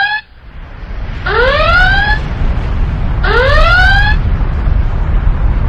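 Whooping alarm sound effect, a tone sweeping upward, heard twice about two seconds apart, over a deep rumble that builds in the first second and then stays loud, an added eruption effect.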